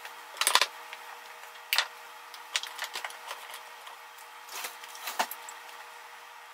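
Kitchen utensils and dishes being handled during counter cleanup: about six scattered light clicks and knocks, a second or so apart, over a steady low hum.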